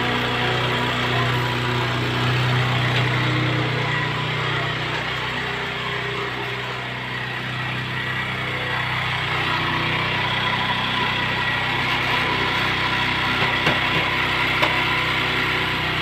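Motorcycle engine idling steadily, soon after a cold start on the choke. A few light knocks near the end.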